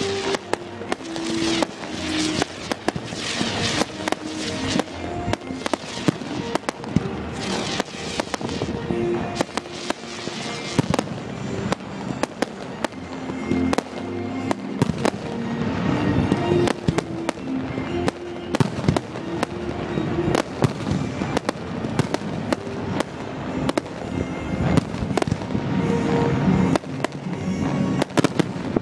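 Fireworks display: a dense, continuous barrage of aerial shell bursts and crackles, many bangs a second, with music playing alongside.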